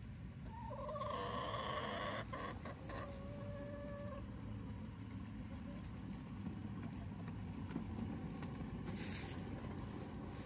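A 7¼-inch gauge miniature locomotive rumbles steadily as it runs toward the listener along the track. About a second in, a hen gives a drawn-out call lasting a few seconds.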